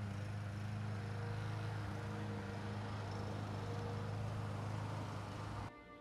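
A steady low mechanical hum with an even hiss over it, cut off suddenly near the end.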